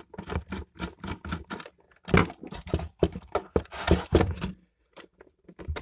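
Screwdriver undoing the screws on the thermal cutout's terminals in an electric shower unit: a quick run of small clicks, then a few louder knocks and rattles of the screws and parts being handled, going quiet about a second before the end.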